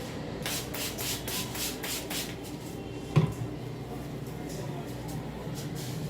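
Spray bottle squirting water, about eight quick hissing sprays in under two seconds, followed about a second later by a single thump.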